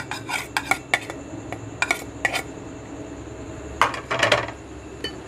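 Utensils clinking against a cooking pot as spices are put onto quail pieces for marinating. A quick string of sharp clinks comes in the first two and a half seconds, then two short, louder scraping rattles near four seconds.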